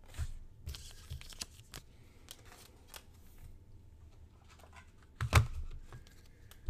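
Trading card in a plastic sleeve being handled: scattered soft rustles and light clicks of card and plastic, with one louder click about five seconds in.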